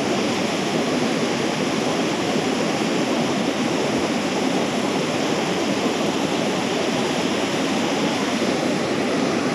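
Steady rushing water, an even loud hiss with no breaks.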